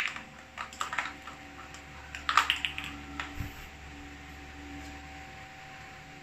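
Cats batting small plastic toys on a tile floor: a run of light clicks and taps, thickest about two and a half seconds in, then falling quiet.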